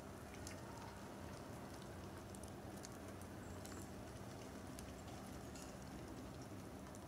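Faint outdoor ambience in snowy woods: a steady low hiss with light, scattered ticks.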